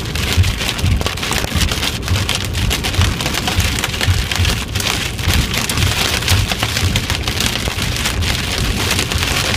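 Hail and heavy rain pelting a vehicle: a loud, dense, steady clatter of countless small hits.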